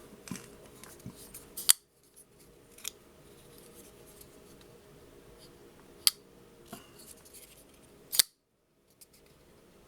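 CIVIVI Riffle flipper knife being flicked open and let drop shut on its ball-bearing pivot, giving sharp metallic clicks: three loud ones a few seconds apart and a smaller one between.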